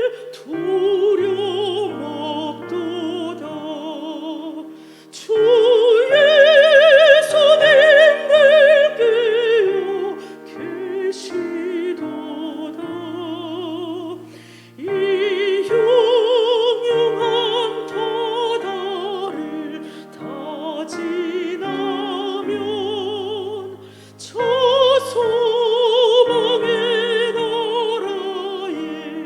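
A solo hymn sung in a classical, operatic style with wide vibrato, over piano accompaniment, phrase by phrase with brief breaths between.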